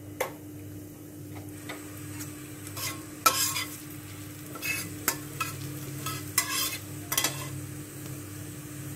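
Cumin seeds and a bay leaf sizzling in hot mustard oil in a non-stick kadai, with a spatula stirring and scraping the pan in a series of short strokes. This is the tempering stage, the cumin just starting to crackle as it fries. A steady low hum runs underneath.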